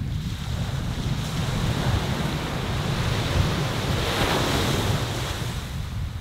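Sea surf washing in, with a wave's hiss swelling about four seconds in, over a steady low rumble of wind on the microphone.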